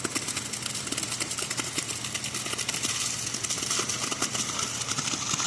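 Engine running steadily at a constant speed, with a fast rattle or clatter over it: construction equipment working at a concrete pour.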